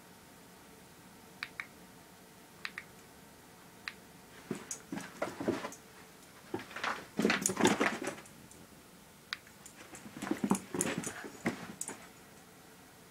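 A Jack Russell terrier scrambling and pouncing on carpet after a laser dot, in two spells of scuffling bursts with thumps, the louder one in the middle and another a couple of seconds later. A few sharp clicks come in the first few seconds.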